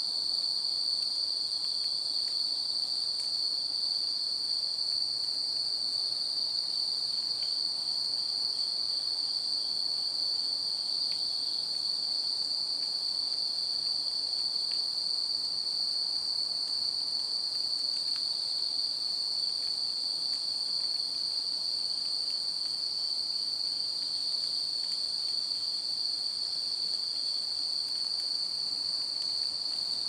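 A chorus of autumn insects trilling without pause on one steady high pitch.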